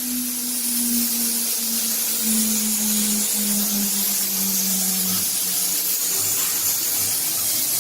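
1325 CNC router engraving a wooden door: a steady high hiss from the spindle and bit cutting the wood, with a lower machine tone that steps down in pitch over the first five seconds and then drops away.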